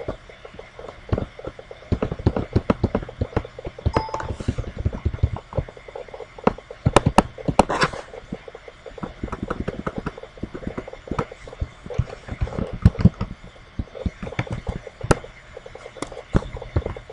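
Computer keyboard typing: irregular runs of key clicks with short pauses between them.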